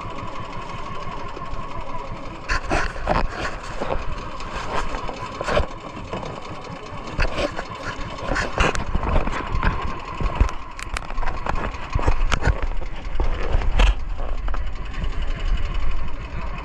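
Small engine of a motorized outrigger fishing boat running steadily while underway, with a steady hum, water splashing at the hull and wind buffeting that swells into a heavy rumble near the end.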